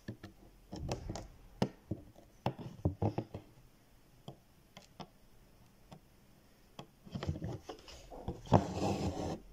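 Embroidery needle and green embroidery thread being worked through fabric stretched in a hoop: scattered small taps and scrapes, busiest in the first few seconds, with a longer, louder rustle near the end.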